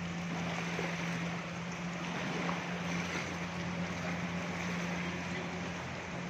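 Steady hiss of rain and floodwater with the constant low hum of a vehicle engine running.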